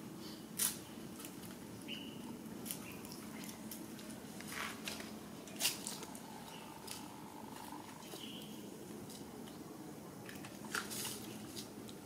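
Quiet ambience around long-tailed macaques: scattered small clicks and rustles and a few brief high chirps over a faint steady low hum. A longer held tone sounds a little past the middle.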